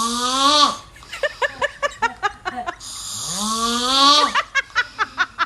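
Snoring in two cycles: each a long snore rising in pitch, followed by a quick run of short pitched puffs at about five a second.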